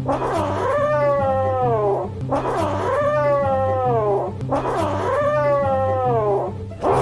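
A cat giving three long, drawn-out yowls about two seconds each, each sliding down in pitch, over background music with a steady repeating bass line.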